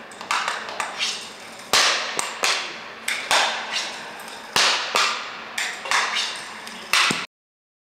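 Hockey sticks striking a small ball passed back and forth across a hard floor: about nine sharp cracks, some in quick pairs, each ringing on briefly. The sound cuts off abruptly near the end.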